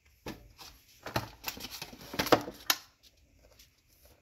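Light clicks, knocks and rustles of cardboard packaging and accessories being handled and packed back into a phone box, stopping about three seconds in.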